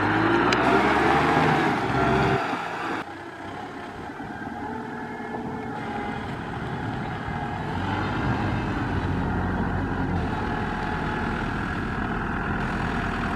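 Kubota M6040 tractor's diesel engine running under load as it pulls a loaded trailer through deep mud, louder for the first two or three seconds and then steady.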